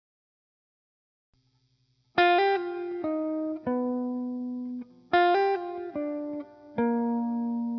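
Background music: near silence for about two seconds, then a short phrase of plucked notes, each ringing out and fading, played again about three seconds later.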